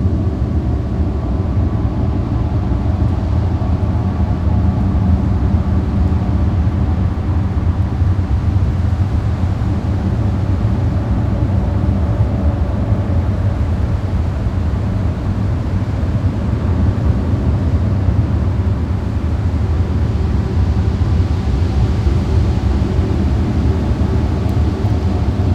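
Steady low rumbling drone, heaviest in the bass, with several faint held tones above it and no change in level.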